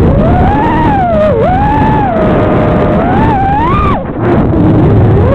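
FPV quadcopter's brushless motors whining, the pitch rising and falling with the throttle and dropping sharply twice as the pilot chops and punches the throttle, over a low rumble.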